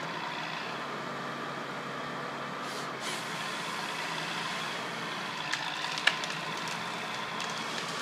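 Wheeled forestry harvester's engine running steadily, with a brief hiss about three seconds in. A few sharp cracks, the loudest about six seconds in, come as the tree it is felling starts to go over.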